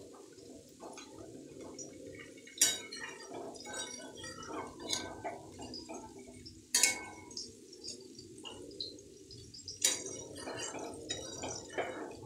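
Metal spatula stirring a thick dal and chicken keema gravy in a pan, with wet squelching and sloshing and three sharp clinks of the spatula against the side of the pan.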